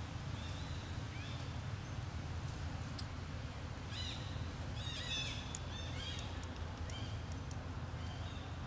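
Short, high chirping calls, several in quick succession around the middle and a few scattered elsewhere, over a steady low rumble.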